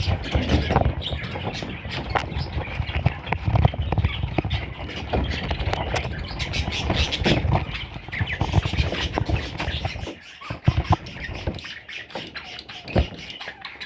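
Budgerigar chicks squawking and chirping in a rapid, busy stream of short calls, with a low rumble underneath that drops away about ten seconds in.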